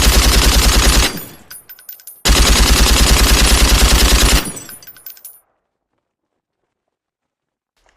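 Lewis gun firing two bursts of rapid automatic fire at about ten shots a second, the second burst longer. Each burst is followed by a brief clatter of fading metallic clicks and ringing.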